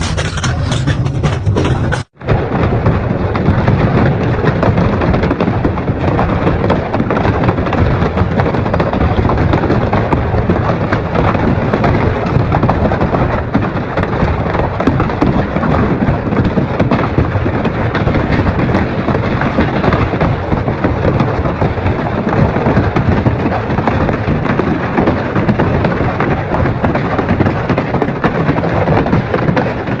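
Double-shaft industrial shredder grinding and crushing material: a dense run of cracks and crunches over a low rumble. It cuts out for an instant about two seconds in, then continues.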